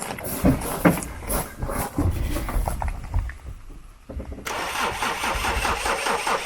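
A car engine being cranked by its starter, turning over in an uneven, stuttering way, then louder and fuller from about four and a half seconds in.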